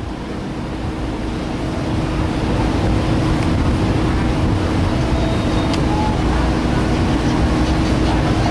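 Cruise ship's engines and machinery running: a steady low rumble with a constant hum, growing louder over the first few seconds.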